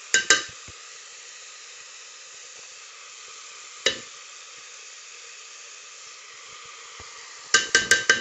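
Chopped tomato, onion and pepper sizzling steadily in a little oil in an aluminium pressure-cooker pot. Sharp ringing clinks of a spoon cut through it: two right at the start, one about four seconds in, and a quick run of taps near the end as the spice is knocked off the spoon.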